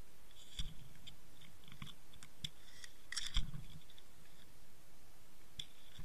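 Sharp clicks and crunches heard underwater through the camera's housing, a few about half a second in, a busy run in the middle with the loudest about three and a half seconds in, and more near the end, over a steady faint hiss.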